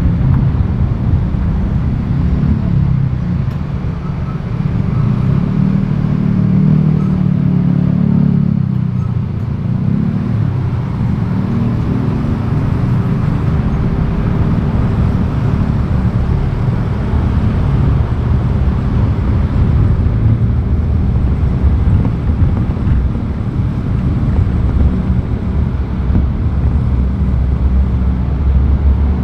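Road and traffic noise recorded from a vehicle driving on city streets: a steady low rumble of engine and tyres. An engine note rises and falls about six to nine seconds in.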